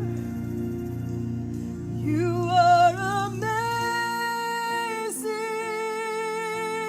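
Worship song in a church service: a singer slides up into long held notes, about two seconds in, over soft instrumental backing.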